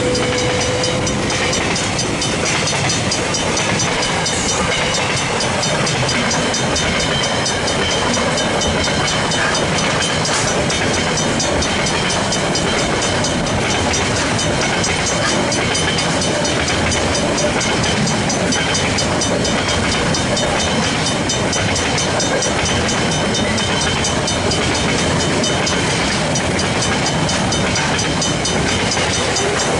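A container freight train's wagons rolling steadily past at close range: wheels on rail with a continuous rumble, rattle and rail hiss. Over it, the crossing's Griswold mechanical bells keep ringing in an even, rapid rhythm.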